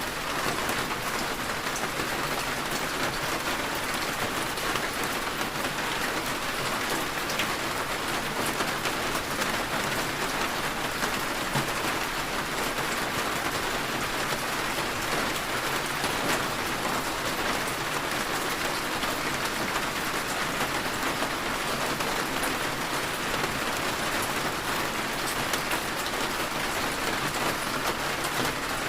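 Heavy rain falling steadily on surfaces, a dense even hiss with scattered drop ticks.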